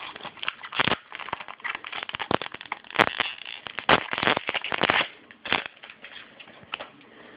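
A 2012 Upper Deck football card pack's wrapper being torn open and crinkled: a dense run of sharp crackles for about five seconds, then thinning to a few scattered crackles.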